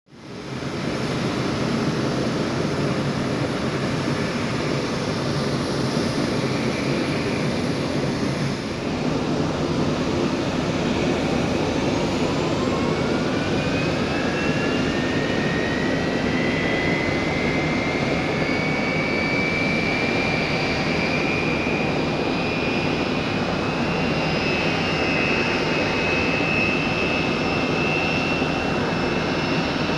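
Pratt & Whitney JT8D-219 turbofan on a McDonnell Douglas MD-83 spooling up during engine start. A whine rises in pitch from about ten seconds in, then levels off and holds, over a steady rushing noise.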